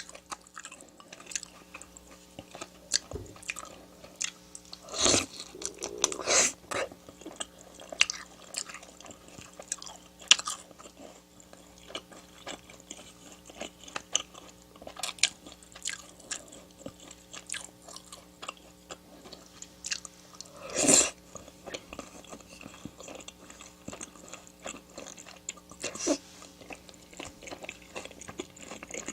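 Close-miked chewing and biting of food, with crisp crunches and wet mouth clicks throughout and a few louder mouth sounds about five, six and a half and twenty-one seconds in.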